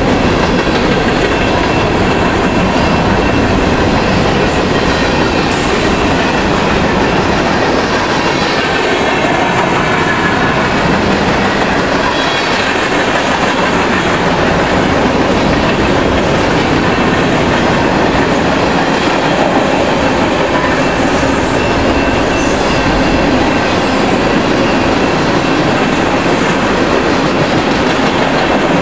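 Freight train of covered hopper and tank cars rolling steadily past at a grade crossing: loud, continuous wheel-on-rail rumble and rattle of the passing cars.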